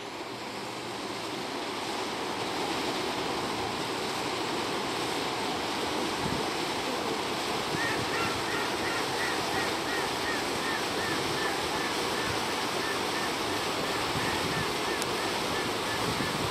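Rushing water of a passenger boat's bow wave and wake, with its motor, growing louder over the first few seconds as it comes close, and wind on the microphone. From about halfway, short high chirps repeat about three times a second.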